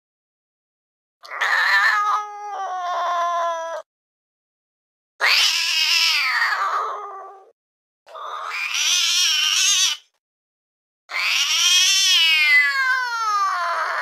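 Angry domestic cat yowling: four drawn-out, wavering calls separated by silence, the last one falling in pitch. These are the aggressive, threatening calls of an angry cat.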